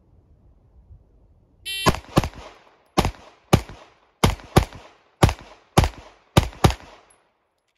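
A shot timer's start beep, then ten pistol shots from a compensated Staccato XC in about five seconds, at a steady pace with some quick pairs.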